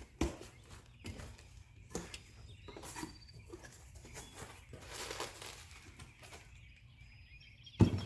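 A cardboard shipping box being handled and opened: scattered taps, scrapes and rustles, with a sharp knock just after the start and a louder one near the end.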